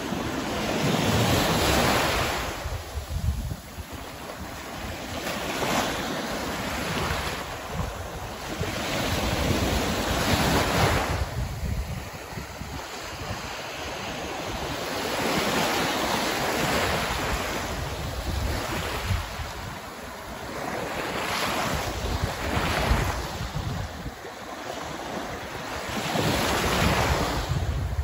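Small waves breaking and washing up the sand, the surf swelling and fading every few seconds, with wind buffeting the microphone.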